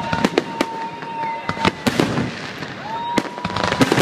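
Aerial fireworks display: shells bursting in a rapid, irregular series of sharp bangs and crackles. A steady high whistle sounds over the bangs, stops about halfway through and comes back near the end.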